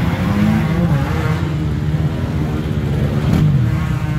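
Dirt bike engines revving under heavy load as the bikes are ridden and pushed through deep mud, the pitch rising and falling.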